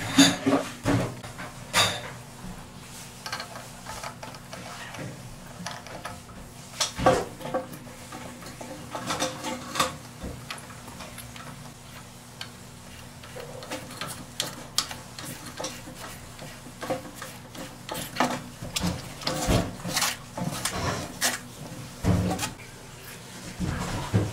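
Irregular clicks, taps and scrapes of hard plastic and metal as a toilet tank's plastic fill valve fittings are handled and worked on with a wrench under the tank.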